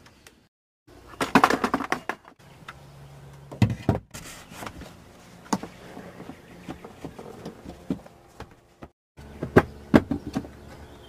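Bursts of metallic clanking, knocking and clicking from hand tools and car parts during the last steps of a rear strut job. The sound is broken by several abrupt cuts, and the loudest clatter comes about a second in and again near the end.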